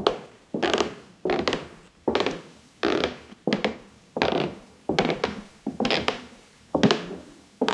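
AI-generated sound effect made with Stable Audio Open 1.0: shoe footsteps on an old wooden floor, a steady walk of about two knocking steps a second, each trailing off in a short creaking, scraping rasp of the boards.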